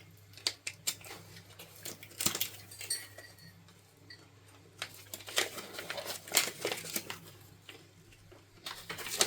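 Small hard plastic pieces clicking and clattering as they are handled, in irregular clusters of sharp clicks.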